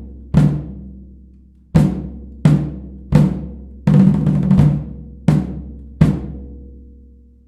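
Drum cadence of snare and bass drum hits: single strikes at about one every 0.7 s, a quick cluster of hits about four seconds in, each ringing out, and a last hit near six seconds that decays away.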